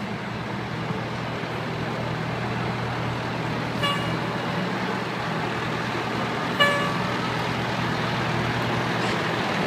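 Fire truck's diesel engine running low and steady as the ladder truck creeps past close by, with two short horn toots about four and six and a half seconds in, the second louder.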